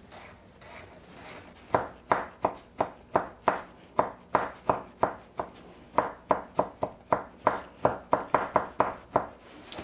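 Chef's knife mincing garlic on a bamboo cutting board: soft taps at first, then from about a second and a half in a steady run of sharp knocks, about three a second.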